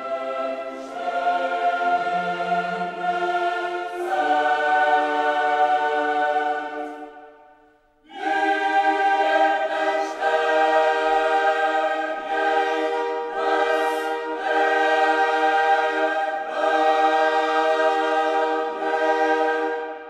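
Background music: a choir singing long held chords. It fades and breaks off around seven seconds in, comes back about a second later, and fades out near the end.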